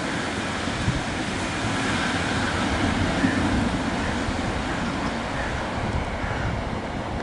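A Class 150 Sprinter diesel multiple unit pulling away, its underfloor diesel engines running under power with a steady rumble as it moves off.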